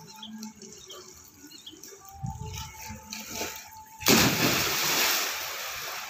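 Swimmers' light splashing in well water, then a loud splash about four seconds in as a boy jumps into the water, dying away over a second or so.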